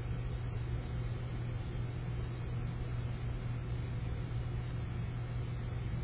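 Steady low hum with an even hiss of background noise and no distinct bird calls.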